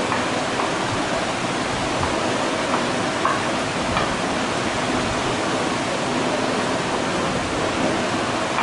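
Steady rushing hiss of background noise, with a few faint scrapes and taps of a silicone spatula in a glass bowl as thick chocolate khoya dough is worked.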